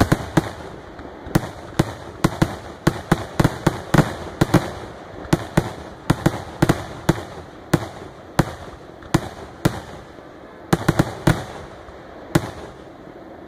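Aerial fireworks display: an irregular series of sharp bangs from shells bursting overhead, about one or two a second with some quick clusters, each trailing off in echo. The bangs thin out near the end.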